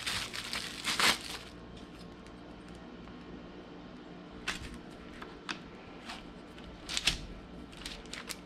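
Plastic wrap crinkling as it is peeled off a metal cookie cutter, loudest about a second in, then a few light clicks and taps as the cutter is handled and pressed into the dough on parchment paper.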